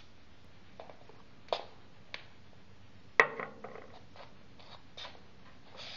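A scattered series of sharp knocks and clicks from hard objects being handled, about nine in all, the loudest about three seconds in with a short ringing tail.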